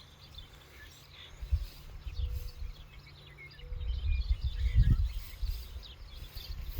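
Outdoor field ambience: low, uneven rumbling gusts of wind on the microphone, with faint scattered bird chirps.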